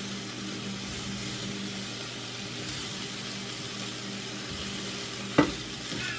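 Salo (pork fat) sizzling steadily in a frying pan, with a low steady hum underneath. A single sharp knock comes about five seconds in.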